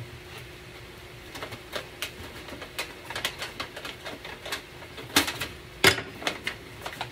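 Thin aluminum cake-pan sheet crinkling and popping as it is pushed out from inside with a wooden spoon: irregular sharp clicks and crackles, the two loudest about five and six seconds in.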